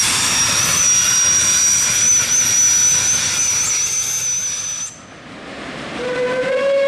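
Heisler No. 6 geared steam locomotive working hard, a steady rush of exhaust and steam hiss with a thin high-pitched squeal over it; the sound drops away about five seconds in. Near the end its steam whistle starts to blow, one held tone rising slightly in pitch.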